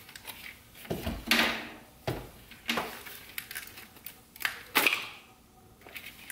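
A V8's fuel rail being worked loose by hand: an irregular series of sharp clicks and knocks, about half a dozen, a few with a dull thud under them.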